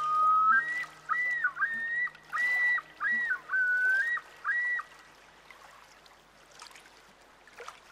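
Background music: a whistle-like melody of quick notes leaping up and down between two pitches over a low held note, stopping about five seconds in and leaving a soft hiss.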